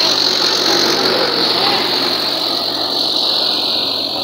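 Mahindra tractor's diesel engine running steadily up close.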